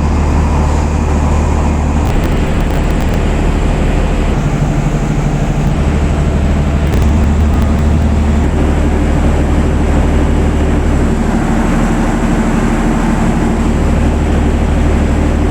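Canopied generator set running steadily under load, a constant low engine hum with a broad rushing noise over it, during a sound level test at 75% load.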